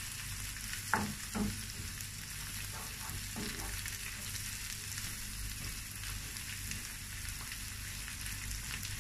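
Chard and onions sizzling in oil in a frying pan while being stirred with a wooden spoon, with a few soft knocks of the spoon against the pan near the start.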